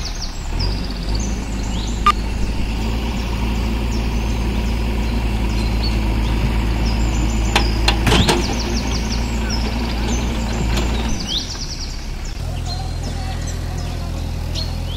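Diesel engines of a tractor and a JCB backhoe loader running steadily under load, hauling a heavily loaded sugarcane trolley through shallow water, with sharp knocks about two and eight seconds in. About eleven seconds in the engine sound changes to a different steady diesel note from the JCB backhoe loader. Small birds chirp throughout.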